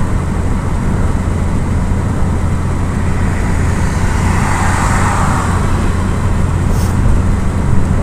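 Steady low rumble of road and engine noise inside a car's cabin while driving at highway speed, with a swell of hiss around the middle.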